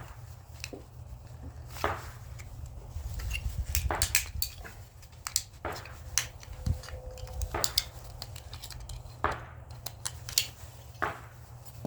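Small metal scrap parts clicking and clinking in irregular, separate knocks as they are handled and sorted, over a low steady hum.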